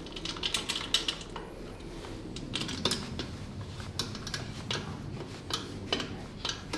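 A string of irregular light clicks and clinks of small metal tools and parts being handled, a few of them sharper than the rest.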